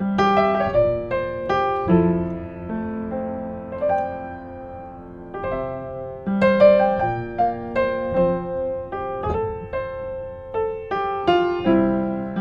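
A 1960s upright piano being played: a melodic passage of struck chords and single notes that ring and decay, with a softer stretch a few seconds in before it grows louder again.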